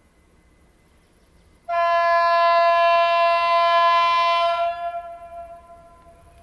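Horn of a PKP SM42 diesel shunting locomotive: one long single-pitch blast of about three seconds that starts abruptly and then dies away.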